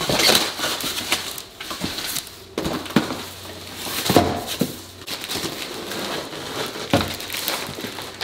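Cardboard shipping box being opened and a plastic-wrapped golf bag drawn out of it: rustling, scraping and crinkling packaging, with several sharp knocks of the box.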